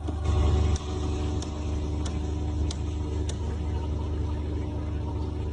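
An engine running steadily with a deep rumble, louder for the first second, then holding an even drone.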